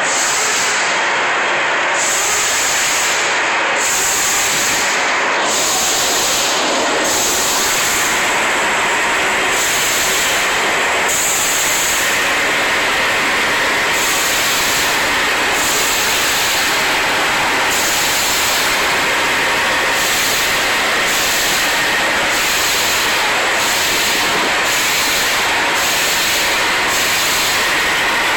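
Diesel engine running steadily after an oil change, a loud, even rushing noise with no break.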